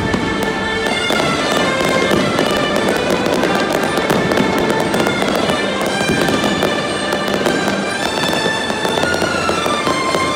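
Aerial fireworks bursting and crackling in quick, dense succession, over continuous music.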